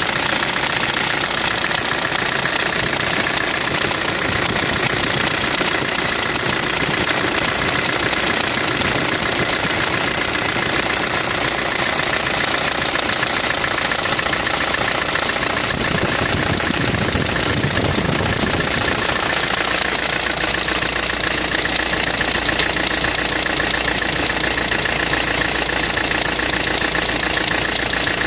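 Nissan Navara D22 engine idling steadily.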